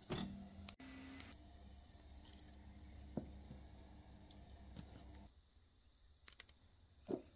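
Faint soft squishing of raw fish slices being handled and seasoned by hand, with a few light ticks and a short knock near the end. A low background hum stops a little past halfway.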